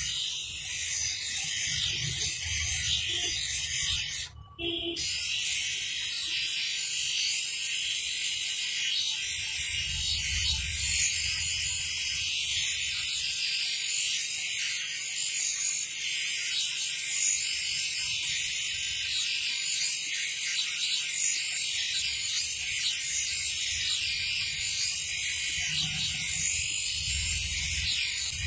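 Spectacle lens being ground by hand against the water-fed spinning wheel of a manual lens grooving machine: a steady, high grinding hiss with the machine's low rumble under it. It breaks off briefly about four seconds in.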